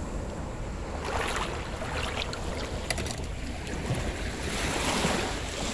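Small waves breaking and washing up the shore in a soft, swelling hiss, with wind rumbling on the microphone.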